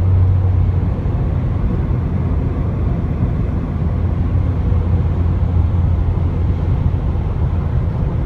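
Steady low engine drone and tyre road noise heard inside a car's cabin while it cruises at highway speed.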